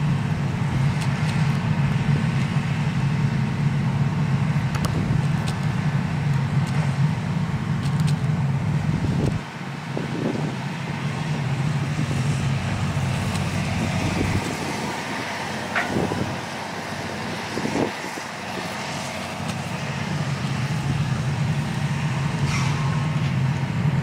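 Hitachi EX200 excavator's diesel engine running steadily as the bucket digs in the river. The engine drops quieter about ten seconds in, with a few knocks, while the loaded bucket is lifted. It comes back up to full level for the last few seconds.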